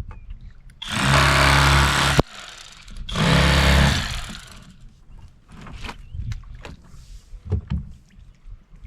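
Electric fillet knife buzzing in two bursts, about a second and a half and then about a second long, switched on and off while filleting crappie, followed by faint scrapes and clicks of knife and fish.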